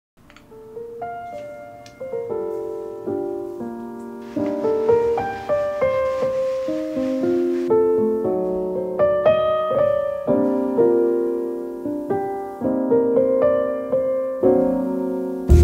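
Background music: a solo piano playing a gentle melody of single notes and chords. It starts softly and grows louder.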